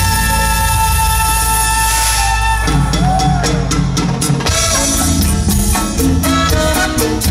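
Loud music over a concert sound system, heard from the crowd. A sustained chord over a steady low bass note holds for about two and a half seconds, then a bouncing bass line and percussion come in with a Latin dance rhythm.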